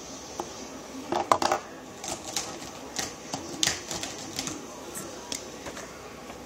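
Irregular light clicks and short scratchy taps close to the microphone, loudest in a quick cluster about a second in: a marker and a sheet of drawing paper being handled while colouring a drawing.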